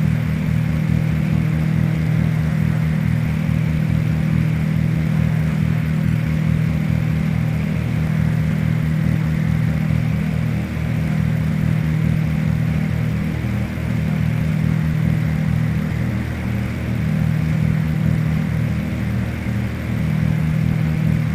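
Steady drone of a Cessna T337G Skymaster's front and rear piston engines, the tone wavering slightly in the second half.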